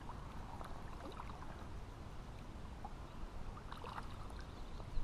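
Small waves of lake water lapping and splashing close by, with small scattered ticks, over a steady rumble of wind on the microphone.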